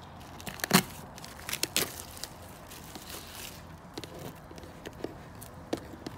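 Taped-down plastic wrap being peeled back from the top of a container: irregular crinkling and tearing crackles, the loudest about three-quarters of a second in.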